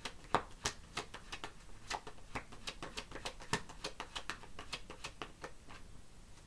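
Tarot cards being handled and shuffled: a run of light, irregular clicks and taps, several a second.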